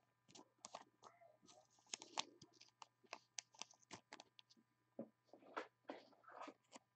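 Faint, irregular clicks and rustles of a football trading card being handled and turned between the fingers, its edges tapping and sliding against fingers and other cards.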